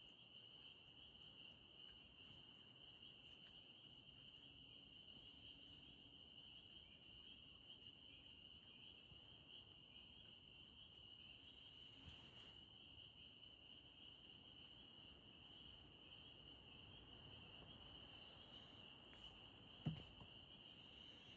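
A faint, dense frog chorus: a steady high-pitched calling without a break. A single short knock comes near the end.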